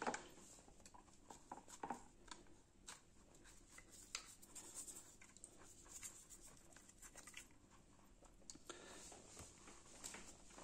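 Faint scratching of a toothbrush scrubbing the black plastic intake tube of a Ciano CF80 aquarium filter: an irregular run of small scrapes and ticks.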